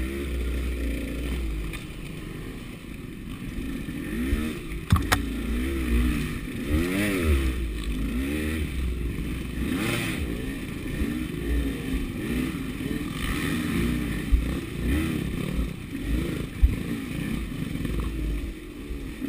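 KTM 200 dirt bike's two-stroke single-cylinder engine revving up and down as it is ridden through a muddy wooded trail, with the clatter of the bike over rough ground and a few sharp knocks, the clearest about five seconds in.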